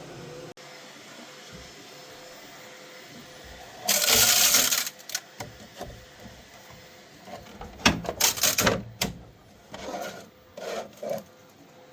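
Handling noise as a piece is moved about. A rub or slide lasting about a second comes four seconds in, then a quick cluster of knocks and clatter, then a few softer knocks.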